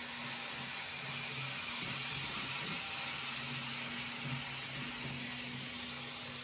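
Kato N gauge model trains running on the track: a steady hiss of wheels rolling on the rails, with a faint low motor hum that comes and goes.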